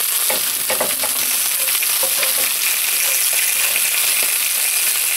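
Steady sizzling from marinated chicken breasts on a ridged grill pan and garlic fried rice in a skillet, with a wooden spatula scraping and tapping the pan as the rice is stirred.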